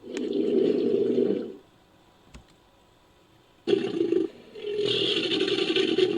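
Designed Baryonyx creature roars built from crocodile sounds: one roar of about a second and a half, a pause of about two seconds, then a longer roar with a brief break that runs on past the end.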